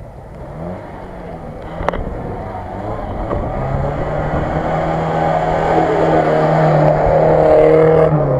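Off-road 4x4's engine running under load as it drives through mud, growing steadily louder as it comes closer. A sharp click sounds about two seconds in.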